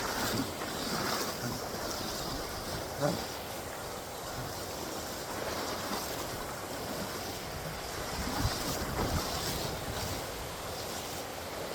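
Mountain stream water rushing steadily over rocks, with a couple of short louder splashes, about three seconds in and again later, as someone wades through it. Wind buffets the microphone at times.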